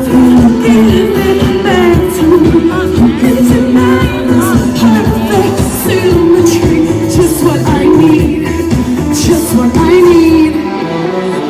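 Live pop concert: a band playing loudly with a woman singing lead over a steady dance beat.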